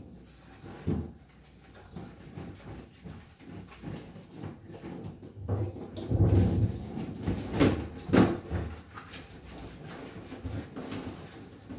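Water splashing and sloshing in a plastic washtub as a wet cat is scrubbed and moves about, with irregular splashes and knocks that grow louder about halfway through.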